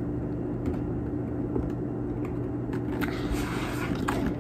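Kinetic sand being squeezed and dug through by hand, giving faint scattered crumbling clicks and a brief soft rustle about three seconds in, over a steady low hum.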